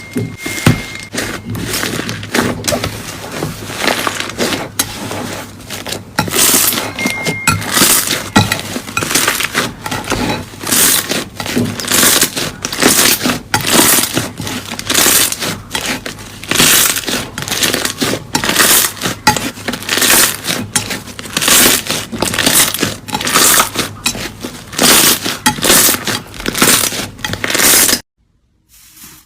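Slime being squeezed and pressed by hand, giving crackling, crinkly squelches at about one or two a second, which stop abruptly near the end.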